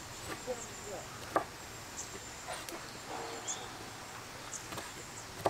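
Kitchen knife chopping tomatoes on a wooden cutting board: irregular taps of the blade against the board, the sharpest about a second and a half in.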